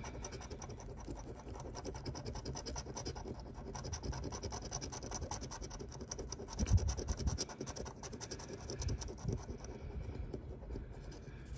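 Scratch-off lottery ticket being scratched, rapid even scraping strokes of a scraper across the coating as the winning numbers are uncovered. A dull thump of the ticket being handled comes about two-thirds through.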